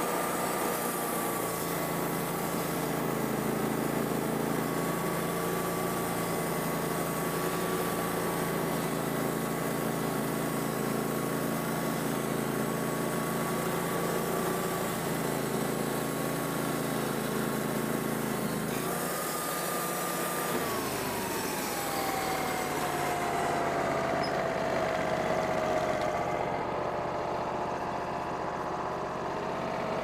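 Wood-Mizer portable band sawmill running steadily as its band blade saws a slab off an apple log. About two-thirds of the way through the sound changes: a high whine falls in pitch and settles lower.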